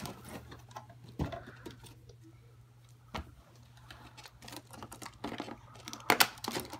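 Plastic magnetic building tiles clicking and clattering in their cardboard box as they are handled: a few separate clicks, then a busier run of clicks near the end.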